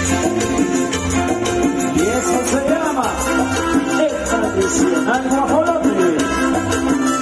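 Live band playing Latin dance music over a PA: a steady bass beat with rattling percussion under a lead melody that slides up and down in pitch.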